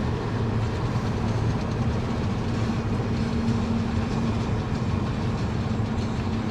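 Steady road and engine noise heard from inside a moving car's cabin: an even, low drone with a faint steady hum.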